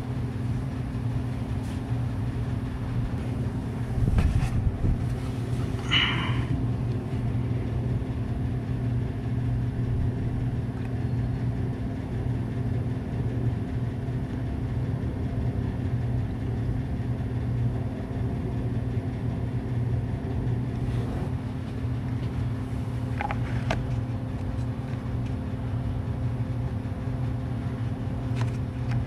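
A steady low mechanical hum from a running motor, with a brief knock about four seconds in and a short rattle about two seconds later.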